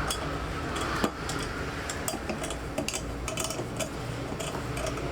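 Metal hand tools and small engine parts clinking and tapping in quick, irregular succession, with one sharper knock about a second in.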